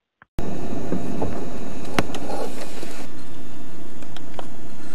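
A loud, steady rushing noise cuts in abruptly about half a second in, with a few sharp clicks and knocks over it.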